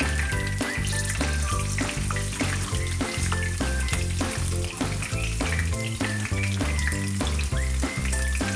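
Background music with a steady beat, over hot oil sizzling and crackling as green chillies, curry leaves and whole spices saute in a kadhai.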